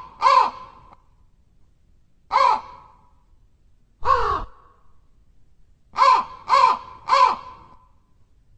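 Crow cawing: six short harsh caws, three spaced a couple of seconds apart, then three in quick succession near the end.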